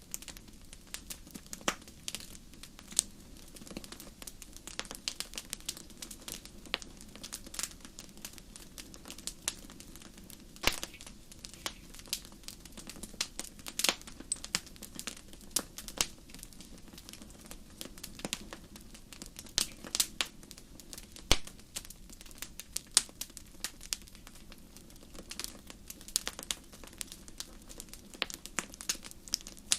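Wood fire crackling steadily, with irregular sharp pops and snaps several times a second over a low rushing of flames.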